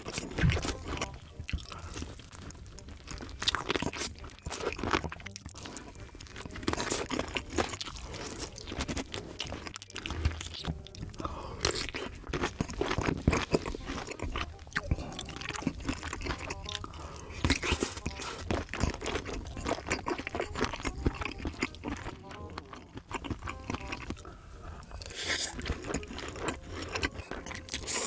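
Close-miked eating: crunchy bites and chewing, a dense run of sharp crunches and mouth sounds.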